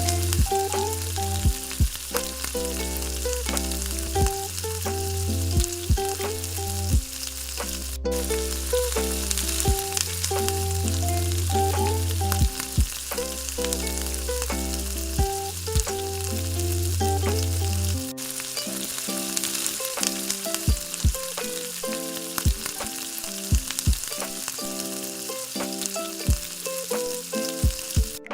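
Egg frying in oil in a pan, a steady sizzle with small pops, under background music with a beat and a bass line that drops out about two-thirds of the way through.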